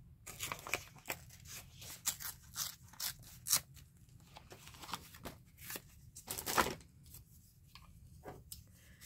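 Scraps of paper being handled: short, irregular rustles and crackles, the loudest about six and a half seconds in.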